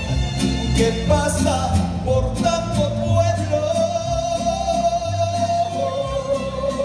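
Live mariachi band with a male lead singer: the singer holds one long note for a few seconds in the middle, over a steady strummed guitar rhythm.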